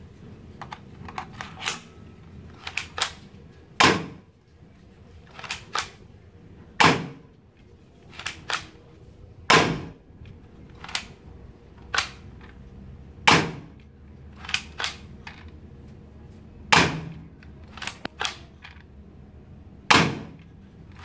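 Manual spring-powered toy Glock 18 BB pistol with a silencer being cocked and fired: six sharp cracks about three seconds apart, with lighter clicks between them as the slide is worked by hand.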